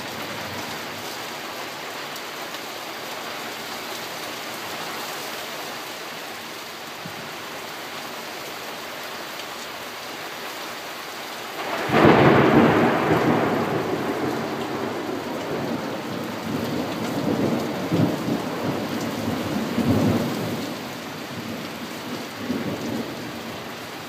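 Heavy rain falling steadily in a thunderstorm. About halfway through, a sudden loud thunderclap breaks in and rolls on as a pulsing rumble that slowly fades over some ten seconds.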